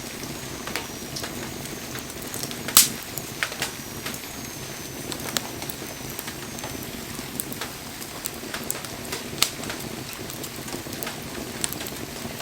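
Wood fire crackling, with irregular sharp pops over a steady hiss; the loudest pop is a little under three seconds in. Faint thin high whistles slide down in pitch through the first half.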